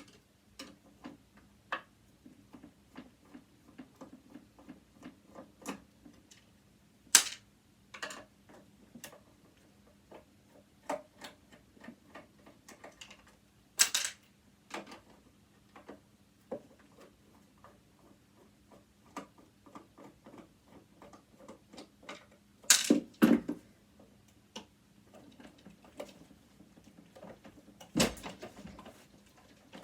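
Screws being worked out of a sewing machine's metal front with a screwdriver: a long run of small irregular clicks and ticks, broken by four louder sharp clicks spread through.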